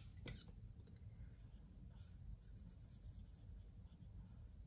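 Faint sound of a marker pen coloring in a shape on a paper card.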